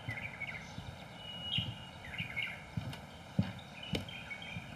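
Footsteps knocking on a wooden footbridge, about two a second, with small birds chirping.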